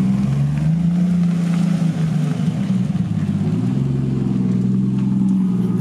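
Car engine running with a steady, loud low drone, its pitch dipping slightly and then rising again partway through.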